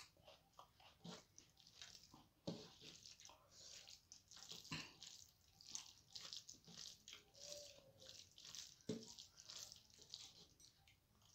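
Fingers mixing soft, watery starchy rice (fena bhat) on a metal plate: quiet, irregular wet squishing and sticky clicks, with a few slightly louder taps.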